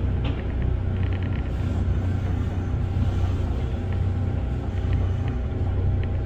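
Kintetsu electric train running along the track, heard from inside the front of the car: a steady low rumble, with a few faint clicks about a second in.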